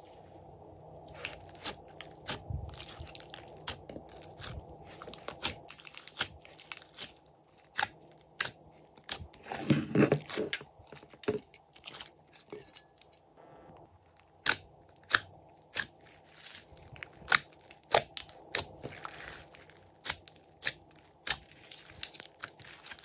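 Glossy slime being stretched, squeezed and kneaded by hand, giving irregular sharp clicks and pops of trapped air with wet squelches. There is a denser, louder squelching stretch about ten seconds in.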